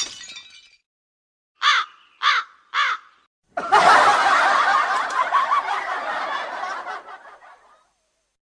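Comedy sound effects: three short pitched laughs in quick succession, then a few seconds of crowd laughter from a laugh track that fades out.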